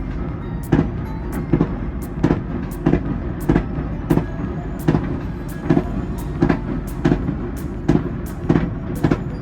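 Fireworks bursting in quick succession, about one to two bangs a second over a continuous low rumble, heard muffled from inside a Ferris wheel gondola.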